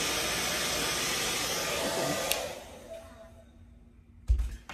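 Handheld hair dryer blowing steadily, drying the glue over a wig cap; about halfway it is switched off with a click and its noise dies away. A dull thump follows near the end.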